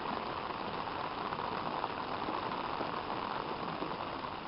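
Heavy rain falling on pavement and standing floodwater, a steady even hiss.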